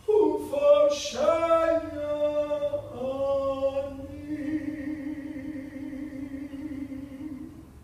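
A cantor's unaccompanied solo voice chanting a short phrase, moving through a few sung notes and ending on one long held note that fades out near the end.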